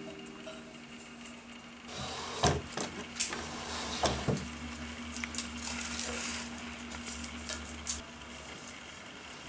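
Handling sounds: several sharp knocks and clicks over a scratchy hiss as a roll of tape and a glass tank are worked with by hand, with a low steady hum underneath.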